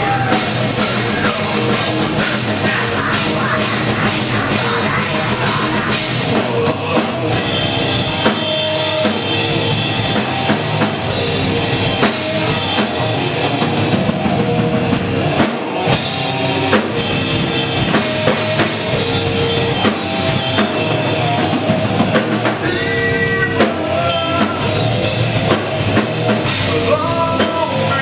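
A live rock band playing loudly: a drum kit keeps up a steady beat of drum and cymbal hits under electric guitar.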